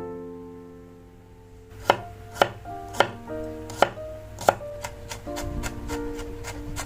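Knife chopping on a cutting board: five sharp strikes about half a second apart starting about two seconds in, then lighter, quicker cuts, over soft piano music.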